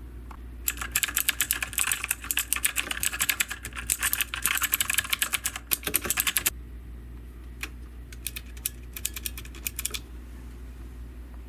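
Fast typing on a mechanical keyboard: a rapid run of key clicks for about six seconds, a brief pause, then a shorter run of keystrokes.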